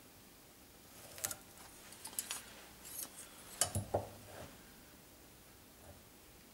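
Metal combination square being handled and set against a wooden workpiece, giving a handful of light clicks and taps. The loudest is a knock nearly four seconds in.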